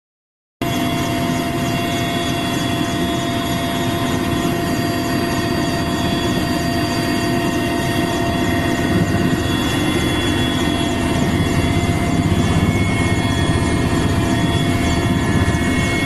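Helicopter running steadily, its rotor and engine noise heard from on board with a constant whine over it.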